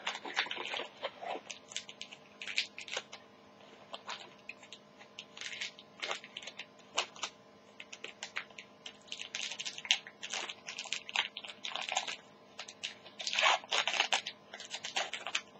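Scissors cutting open a foil trading-card pack, with irregular crinkling and crackling of the wrapper as it is handled and torn open.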